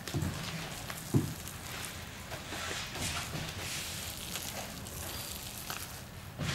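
Gloved hands working a resin-soaked patch liner wrapped on a packer over plastic sheeting: a wet, sticky crackling and rustling, with two soft thumps in the first second or so.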